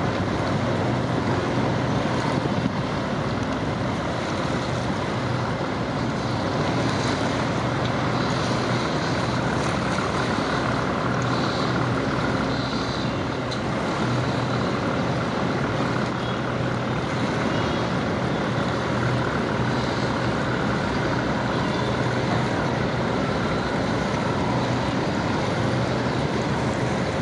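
River passenger ferry under way, its engines running in a steady drone with a constant low hum and a wash of rushing noise over it.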